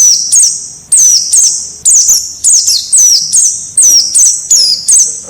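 Wild white-eyes (pleci) calling: short, high chirps that sweep downward, repeated about twice a second and sometimes overlapping.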